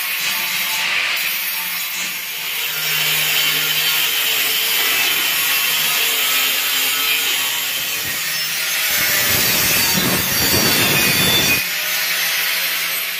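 Angle grinder running under load, cutting into a marble stair tread with a steady, hissing grind. For a couple of seconds near the end the grind turns heavier and deeper.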